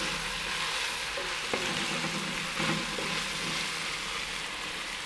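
Sliced mushrooms, diced bacon and onions sizzling steadily in hot oil in a square cast-iron Dutch oven, stirred with a wooden spatula that scrapes a few times against the pot.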